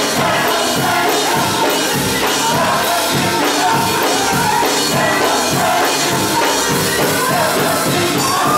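Gospel church choir singing a melodic line with band accompaniment over a steady beat.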